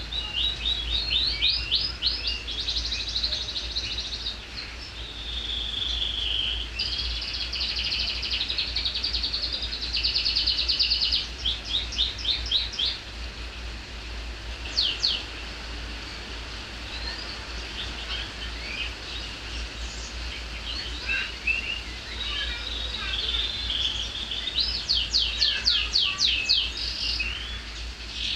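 Domestic canary singing shrill, high-pitched song: long runs of fast trills and rolled phrases, thinning to scattered short notes through the middle before a last burst of rapid trills near the end. The bird is not yet in full condition, still moulting with bare neck feathers. A steady low hum runs underneath.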